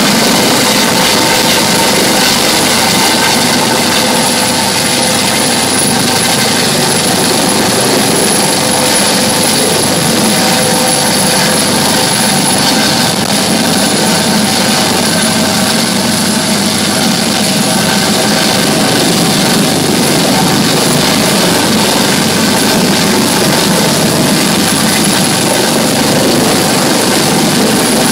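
US Coast Guard HH-65 Dolphin helicopter hovering low overhead, its rotor and turbine noise loud and steady, with a thin high whine held throughout.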